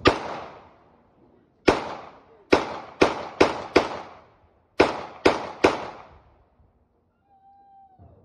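Celebratory gunfire across the neighbourhood: nine sharp shots in about six seconds, some spaced out and several in quick succession, each trailing an echo. A short high whine near the end.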